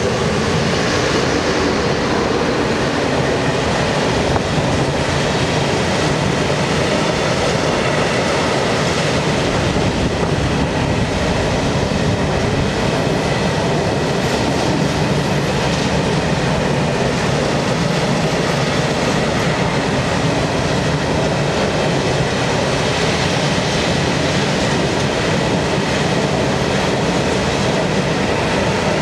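ČD Cargo class 163 electric locomotive passing close, followed by a long freight train of hopper wagons rolling steadily by on the rails. The sound swells as the locomotive comes level, then stays a steady, even noise of wheels on track.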